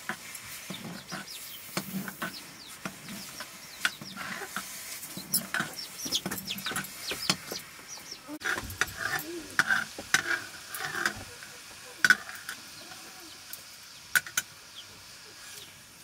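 A long metal spoon stirring and scraping thick maize-flour porridge (dhido) in a metal pot, with irregular sharp knocks of the spoon against the pot.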